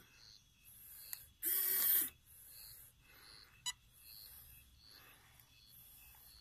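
Small electric motor of a scale RC4WD Warn Zeon 10 winch whirring in one short burst of about half a second, about a second and a half in, reeling in the line to pull the overturned RC truck upright. Fainter short hissing pulses come at intervals between.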